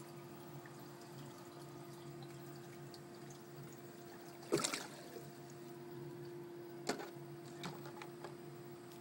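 A plastic water bottle handled and pushed upside down into a plastic pot: a sharp plastic crackle-clunk about halfway through, then a smaller knock and a few light ticks, over a steady low hum.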